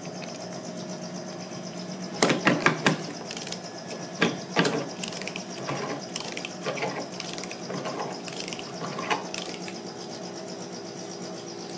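Hand-cranked Neodent bone mill being turned as it grinds extracted tooth and bone into graft particles: clusters of clicks and grinding scrapes, loudest about two seconds in and again a couple of seconds later, over a steady hum.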